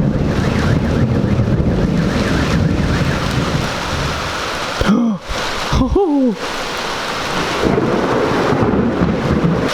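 Thunder rumbling over steady heavy rain. The rumble eases about halfway and returns near the end, with two short pitched sounds, rising then falling, around five and six seconds in.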